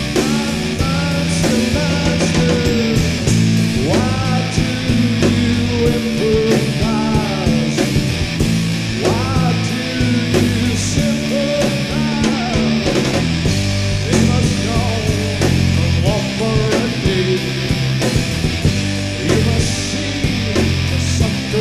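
Loud rock music in an instrumental stretch: a lead line of bending, sliding notes over a steady bass and drums.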